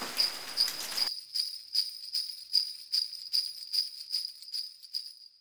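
Jingle bells shaken in a steady rhythm, about two and a half shakes a second, growing fainter and stopping just before the end, as the Christmas song's outro fades out. A short wash of sound cuts off about a second in, before the bells play alone.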